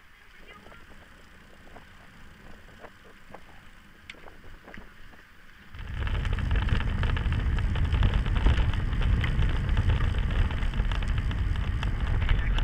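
Quiet at first with faint scattered clicks. About six seconds in, loud steady wind noise suddenly starts on the microphone of a camera mounted on a moving bicycle, with a deep rumble underneath.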